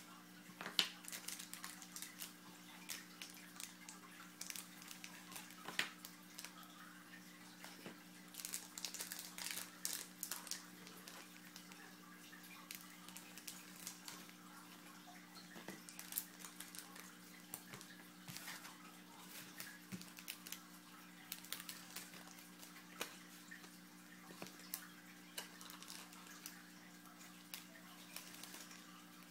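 Trading-card packs and cards being handled: scattered crinkling of wrappers and light clicks and taps of cards, over a steady low hum.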